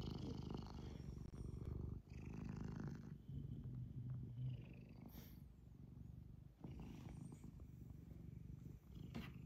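Domestic cat purring close to the microphone: a low, pulsing purr that runs in stretches broken by short pauses for breath.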